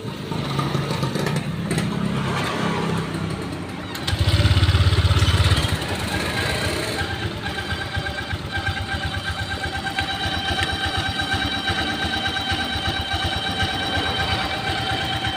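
Honda Vario 125 single-cylinder scooter engine started and running with its front CVT pulley removed, louder for a moment about four seconds in, then settling to a steady run with a thin whine over it. The odd noise is still there with the pulley off, the sign that it does not come from the CVT.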